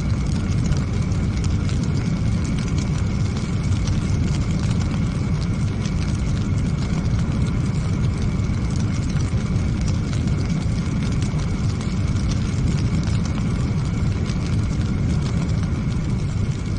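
A huge chemical fire and explosion cloud: a steady deep rumble with constant crackling and small pops over it.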